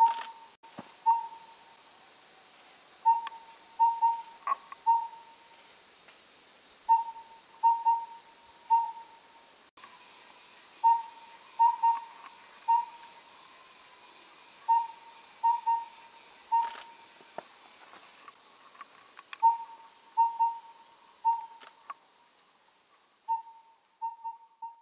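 Collared owlet (collared pygmy owl) singing its whistled hoot in four-note phrases: one note, a quick pair, then one note. The phrase repeats about every four seconds, over a steady high-pitched hiss.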